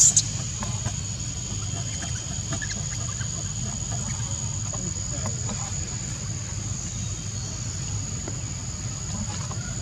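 Insects droning steadily in one high-pitched tone over a low rumble, with a brief sharp high-pitched burst right at the start.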